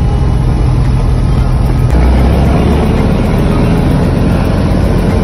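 Single-engine propeller plane's engine and propeller running at high power on the takeoff roll, heard from inside the cockpit as a loud, steady drone. The low part of the drone shifts about two seconds in.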